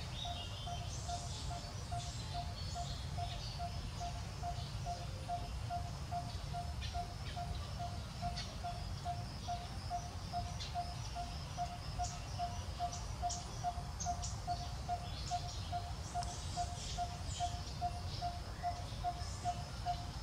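Outdoor birdsong: scattered short high chirps over one steady repeated call, a single note sounded evenly about two and a half times a second, with a low rumble underneath.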